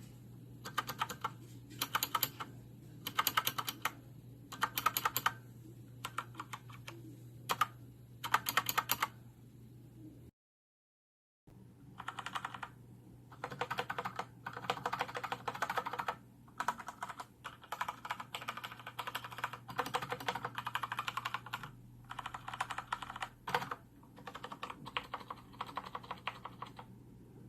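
Keys of an i-rocks K75MS mechanical keyboard being pressed, a demonstration of the abnormal noise from its long keys set against their sound after repair. For the first ten seconds the presses come in separate short clusters; after a cut to silence of about a second they come faster and more continuously.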